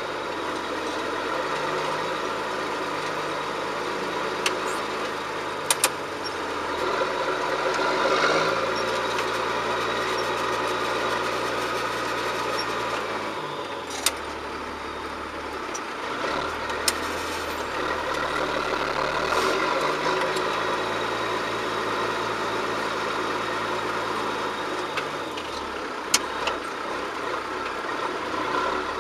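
John Deere 7710 tractor's six-cylinder diesel engine running steadily while pulling a plough, its pitch shifting a little now and then, with a few short sharp clicks.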